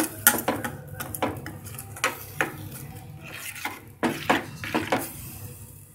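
A spoon stirring thin curry in a steel pot, knocking and scraping against the sides and bottom in irregular clinks that thin out near the end.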